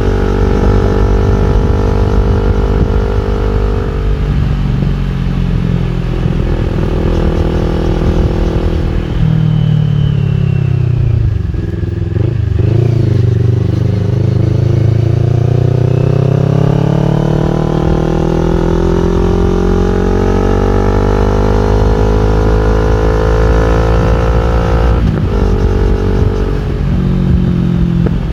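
CFMOTO NK400's parallel-twin engine running through an Akrapovic full exhaust system while the bike is ridden. The engine note holds steady at first and drops in pitch as the bike slows about ten seconds in. It then climbs steadily as the bike accelerates, with a brief break for a gear change about 25 seconds in.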